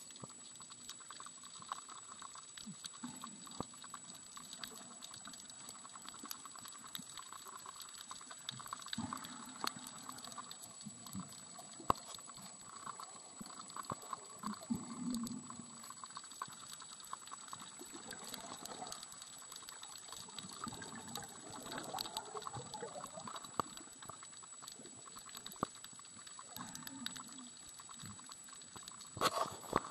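Underwater ambience recorded by a camera held under the surface: muffled water movement with many scattered clicks and crackles and a steady faint high whine.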